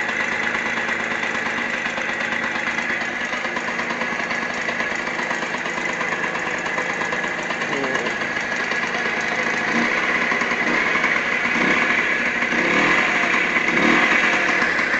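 Restored Vespa VN1M single-cylinder two-stroke engine, its cylinder bored to 54.6 mm, running steadily at idle and getting a little louder in the second half.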